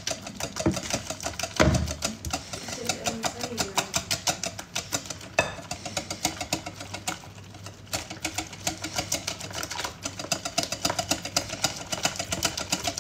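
Batter being beaten by hand in a mixing bowl: rapid, even clicking strokes about eight a second, easing off for a couple of seconds about six seconds in.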